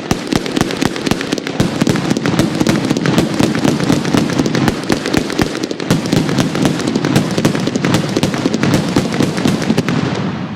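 Firecrackers going off in a long, rapid string, the cracks so close together that they run into one continuous crackle. It stops briefly at the very end.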